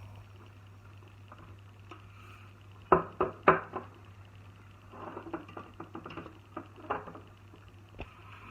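Kitchen work: three sharp knocks of utensils or dishes about three seconds in, then a run of lighter taps and clicks, over a low steady hum.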